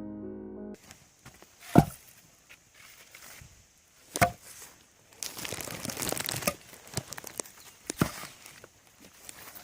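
Piano music stops about a second in. Then come two sharp knocks a couple of seconds apart, followed by rustling, crinkling handling noise and scattered clicks.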